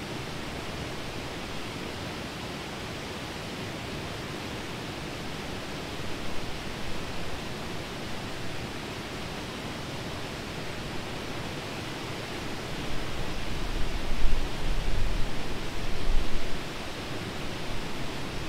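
Steady outdoor wind noise, an even hiss, with gusts rumbling on the microphone about six seconds in and again for a few seconds from about two-thirds of the way through.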